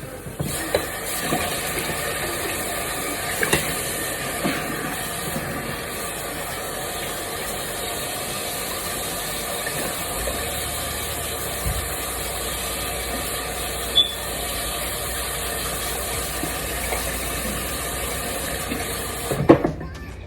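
Steady hissing noise with a hum beneath it and a few light clinks, cutting off suddenly about a second before the end.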